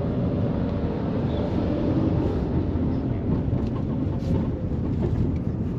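A small car's engine and road noise heard from inside the cabin while driving, a steady low rumble.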